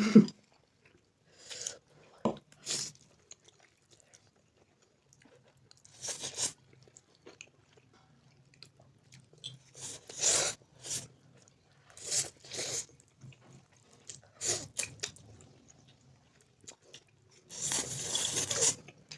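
Close-miked eating sounds of 2x spicy Buldak instant noodles being eaten: short, scattered bursts of chewing and slurping with quiet gaps between them, and a longer burst near the end.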